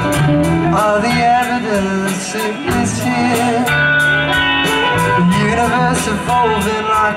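Live rock band playing: electric guitars over bass and a steady drum beat with regular cymbal strikes.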